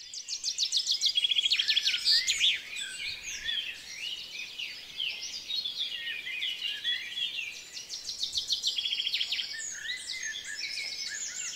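Several songbirds singing at once: a dense chorus of chirps and fast trills, with quick runs of repeated notes at the start and again about eight seconds in.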